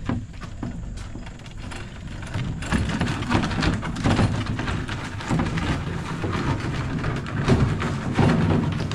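Small wheels under a heavy wooden cabinet rumbling as it is pushed, then grinding and crunching over a loose gravel floor, louder and rougher from a couple of seconds in.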